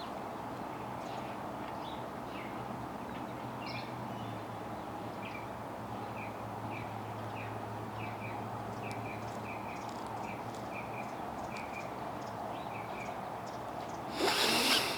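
Small birds chirping: short high chirps repeating about once or twice a second over a steady background hiss. A loud, brief burst of noise comes near the end.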